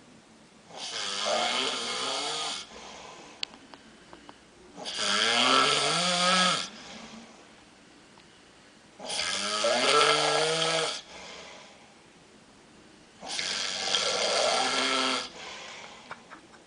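A drunk man snoring in his sleep: four loud snores about four seconds apart, each lasting about two seconds, some with a tone that rises in pitch.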